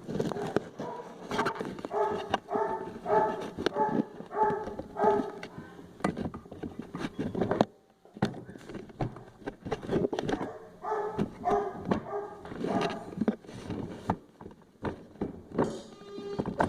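A dog barking repeatedly in two bouts, about two to three barks a second, with scattered clicks and knocks of things being handled.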